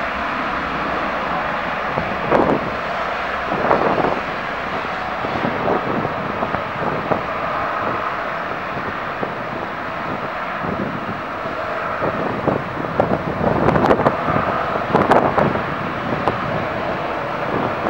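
Airliner engines running with a steady rushing noise, with gusts of wind buffeting the microphone.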